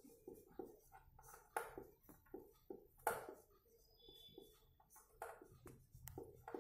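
Marker writing on a whiteboard: a run of faint, short strokes and taps, with a brief thin squeak about four seconds in.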